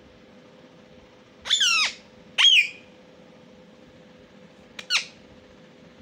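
Indian ringneck parakeet giving three short, loud, shrill calls: two close together about a second and a half in, and a shorter one near the end.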